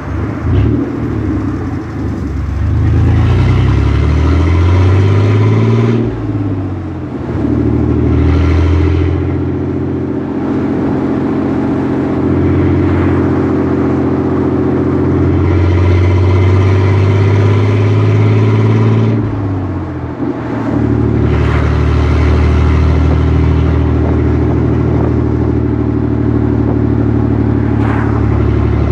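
Chevrolet Blazer's V6 engine pulling under acceleration while driving. Its pitch climbs, drops at gear changes about six seconds and about twenty seconds in, then runs steadily at cruising revs.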